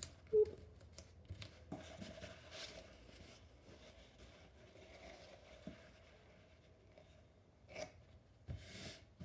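Hands handling a paint-stained disposable absorbent pad and painter's tape: a short knock, then soft rustling and crinkling as the pad is lifted, laid down and smoothed flat, with a couple of louder rustles near the end.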